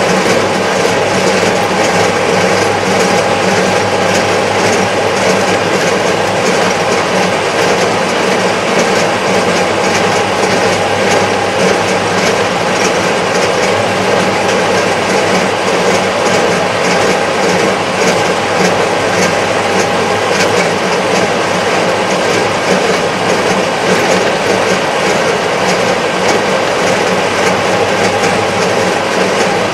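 Kubota MZ755 tractor's diesel engine and drivetrain running steadily at road speed, heard from inside the enclosed cab, with a fast, even clatter over the drone.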